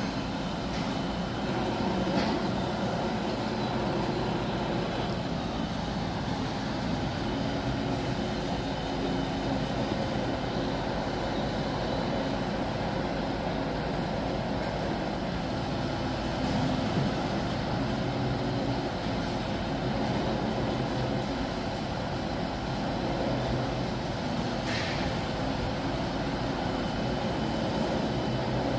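Truck-mounted mobile crane's diesel engine running steadily, driving the hydraulics as the boom is raised.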